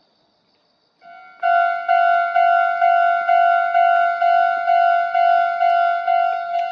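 Japanese railway level crossing's electronic warning bell starting about a second in and ringing a steady ding-ding, about two strikes a second, the signal that a train is approaching and the crossing is closing.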